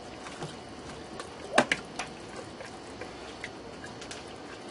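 A spoon stirring thick meat and tomato sauce in the metal inner pot of an electric pressure cooker, with scattered clicks and scrapes against the pot. The loudest is a sharp knock about a second and a half in.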